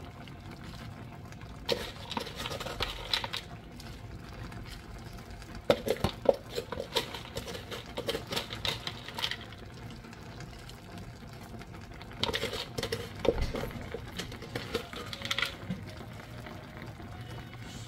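A spoon scooping shredded cheese and scattering it over tteokbokki simmering in a pot: three bouts of light scraping and clinking, with a faint steady bubbling under them.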